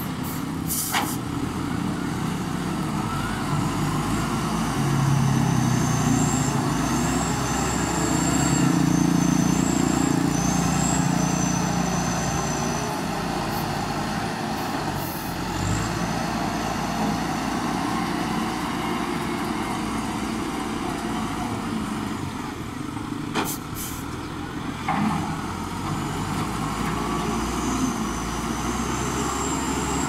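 LiuGong wheel loader's diesel engine running under load as it pushes dirt with its bucket, louder for several seconds about a fifth of the way in. A few short knocks are heard near the start and about three-quarters of the way through.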